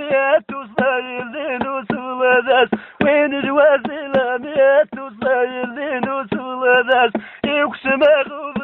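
A man's voice singing a chant-like melody in short repeated phrases, with a wavering pitch and brief breaks between the phrases.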